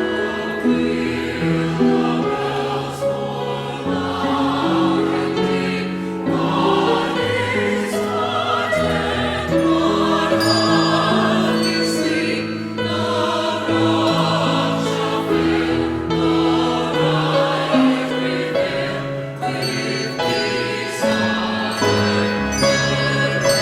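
Church choir singing held chords with instrumental accompaniment.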